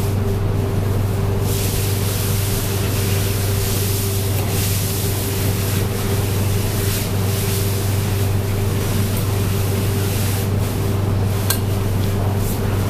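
A steady machine hum: a constant low drone with a thin unchanging tone above it and a rushing hiss over the top, holding level throughout.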